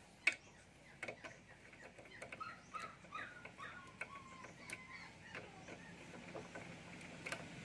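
Faint metallic clicks and taps as a nut is threaded by hand back onto the end of a three-wheeler's front axle, with one sharper click just after the start. A faint animal whine rises and falls between about two and four seconds in.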